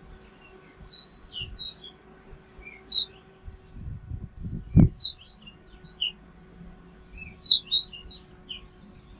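Small birds chirping in short, quick clusters of high notes, with pauses between them. A low rumble builds and ends in a single dull thump about five seconds in.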